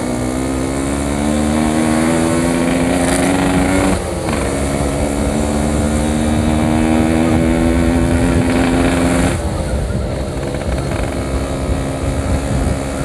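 Yamaha RX-King's 135cc two-stroke single-cylinder engine pulling under throttle. Its pitch climbs for about four seconds, dips at a gear change, then climbs again. About nine seconds in the throttle closes and the engine drops back to a lower, uneven note, with a low wind rumble underneath.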